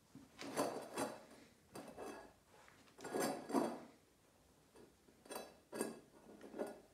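Small tin bowl scraping and clattering on a wooden floor as a puppy paws it out from under furniture, in about six separate bursts.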